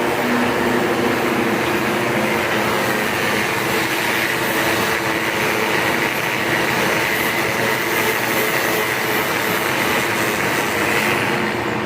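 Angle grinder running steadily against the steel of a welded leaf spring, a continuous harsh grinding noise with a high tone that wavers slightly as the load changes.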